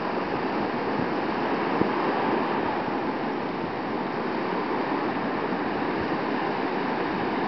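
Ocean surf breaking and washing up the beach: a steady rushing that swells and eases slightly.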